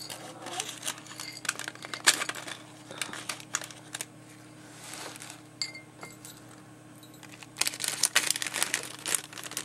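Hands rustling through tissue paper and packaging in a craft kit, with small clicks and clinks of pearls and metal charms being picked up. The handling grows busier near the end, over a faint steady hum.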